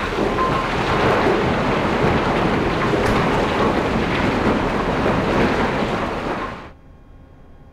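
Crushed coal pouring from a train loadout chute into a rail car: a loud, dense rushing rumble that cuts off sharply about six and a half seconds in, leaving a quiet steady hum.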